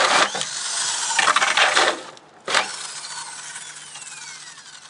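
Corded drill with a 4 1/8-inch hole saw cutting through the wall of a corrugated plastic culvert pipe, a loud grinding chatter for about two seconds. The cut breaks through and the drill stops, followed by a sharp click and the motor winding down in a falling whine.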